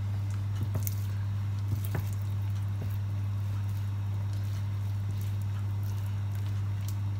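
Bare hands rubbing soft herb butter over the skin of a raw whole chicken: faint wet squishes and a few light taps. Under them runs a steady low hum.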